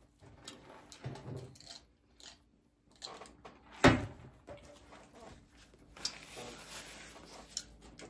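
Close-miked chewing and eating noises from someone working through White Castle sliders, with small clicks and smacks, one loud knock about four seconds in, and a short rustle near the end.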